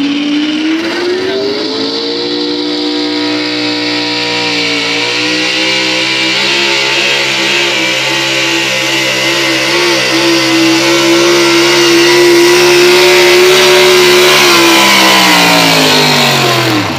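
Pull-truck engine on a pickup dragging a weight sled. It climbs to high revs over the first two seconds and holds there steadily through the pull, then winds down over the last couple of seconds as the pull ends.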